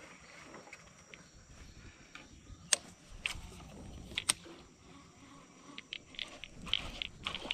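A few sharp clicks and knocks from a baitcasting rod and reel being handled in a wooden canoe, then a quicker run of short, light clicks near the end.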